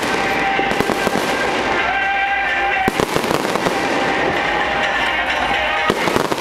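Fireworks display: a dense, continuous barrage of crackling and popping bursts.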